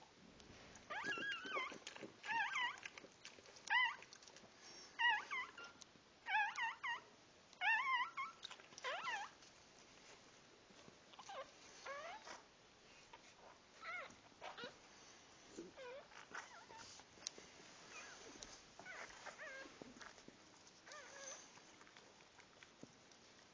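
Newborn dachshund puppies squeaking and whimpering in short, high-pitched cries, several to the second for the first nine seconds or so, then fainter and more spaced out.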